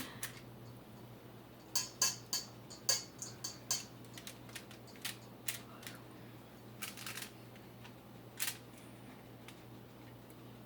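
Light clicks and taps of chicken wings and utensils being handled in a baking pan: a cluster of quick clicks about two to four seconds in, then a few scattered ones, over a steady low hum.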